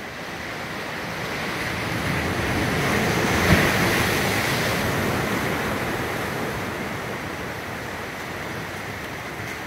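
Sea surf washing against rocks: the wash swells to a peak about three and a half seconds in, with a brief knock as the wave hits, then slowly eases to a steady lower wash.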